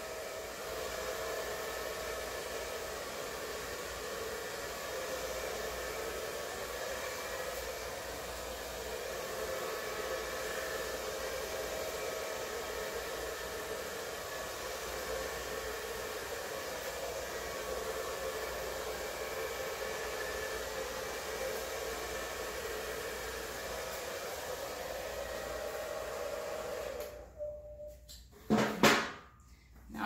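Hand-held blow dryer with its nozzle attachment removed, running steadily: a rushing blow with a steady hum in it as it pushes wet acrylic paint across a canvas. It cuts off about three seconds before the end, followed by a single sharp knock.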